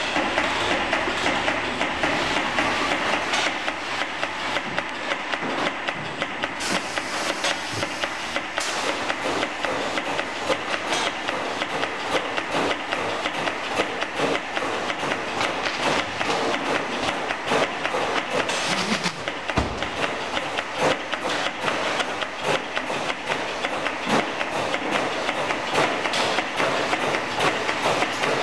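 Inline filling machine running: a steady mechanical clatter with many small clicks and knocks from the conveyor and the pneumatic fill heads.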